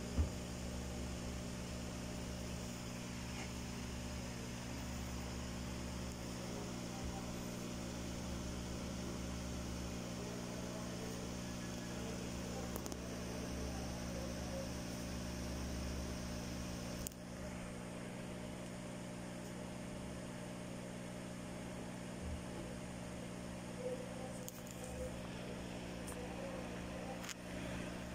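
Aquarium air pump humming steadily, with faint bubbling from the air line and sponge filter. A single light click comes about two-thirds of the way through.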